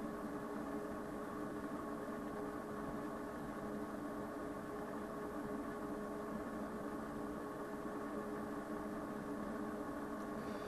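Steady electrical hum with several fixed tones, from running bench electronics.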